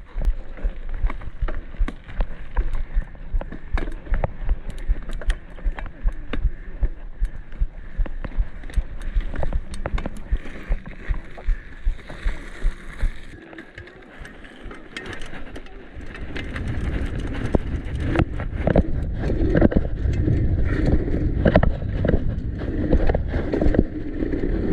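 Downhill mountain bike riding fast over pavement: wind rumble on the microphone, tyre noise, and a steady rattle of chain and frame. The noise drops briefly just past the middle, then builds again.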